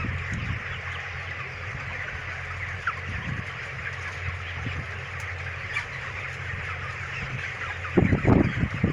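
A large flock of 28-day-old broiler chickens clucking and chirping all at once, a dense steady chatter over a low steady hum. A few loud thumps come near the end.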